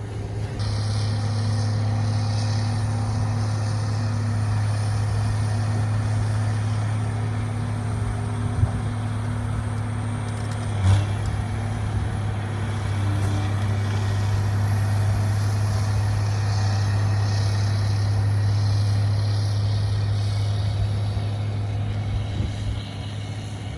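Heavy farm machinery engine running steadily close by, a constant low drone, with a brief knock about eleven seconds in.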